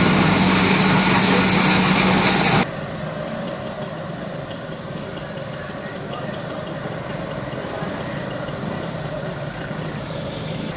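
Loud steady hiss with a low hum underneath from a smoking bus engine being hosed down by firefighters. About two and a half seconds in it cuts off abruptly to much quieter, steady engine and street noise.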